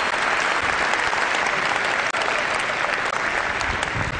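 Large auditorium audience applauding, easing off slightly near the end.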